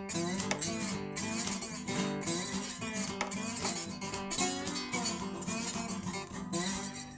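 Blues song's instrumental outro, with strummed guitar carrying a steady rhythm, closing on a final chord that is left ringing near the end.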